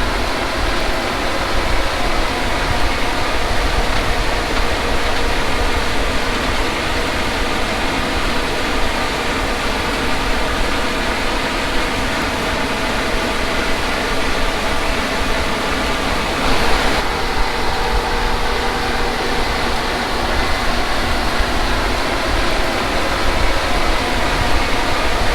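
Combine harvester running steadily at work, a constant engine and machinery drone with a dense, even hum.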